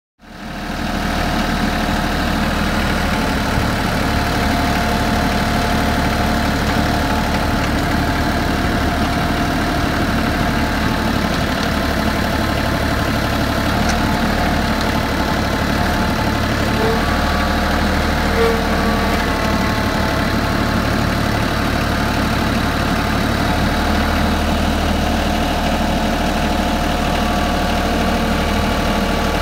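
Compact tractor engine running steadily while its hydraulic post-hole auger bores into the ground; the engine's low note shifts slightly about three seconds in and again later.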